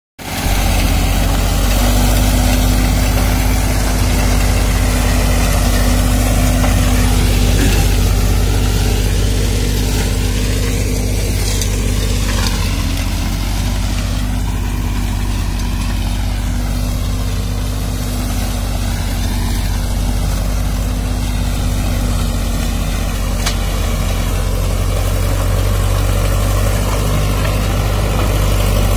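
Tractor's diesel engine running steadily under load while its rear-mounted mulcher shreds standing pearl millet stalks: a constant engine hum with a broad whirring, shredding noise over it.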